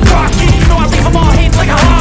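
Loud background music with a steady beat and a vocal line.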